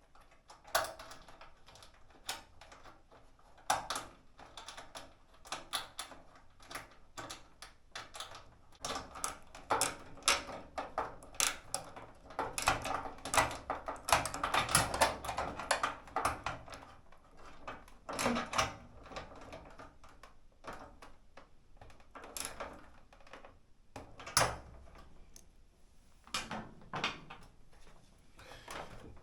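Irregular clicks, taps and knocks of plastic and sheet-metal dryer parts being handled and fitted together during reassembly, thickest in the middle stretch with a few louder knocks later.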